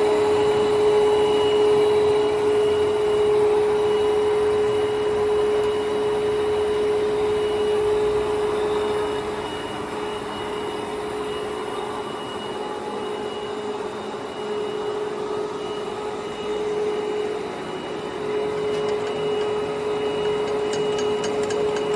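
Jin Ling 25180G gap bed engine lathe running under power, with a steady gear whine from the headstock and machine hum that dips slightly in level midway.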